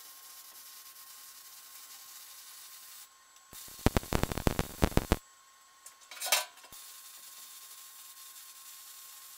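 Arc welding on steel plate: a loud run of crackling for about a second and a half near the middle, then a short second burst, over a steady faint hiss.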